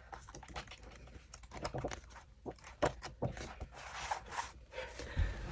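Light handling noises of album packaging: scattered small clicks, scrapes and rustles of paper and plastic as the contents are taken out and sorted.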